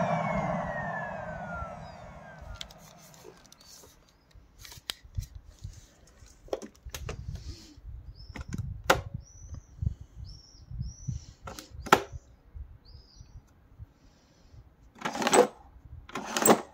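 Samsung vacuum cleaner motor switched off, its whine falling in pitch and fading away over the first three to four seconds. Scattered faint clicks and knocks follow, with a few short high chirps, and two short loud rushing noises near the end.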